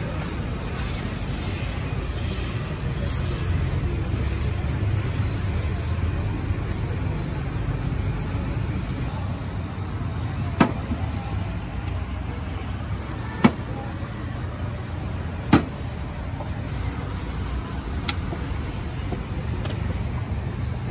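Steady road traffic noise with a low rumble, and four sharp clicks, spaced two to three seconds apart, in the second half.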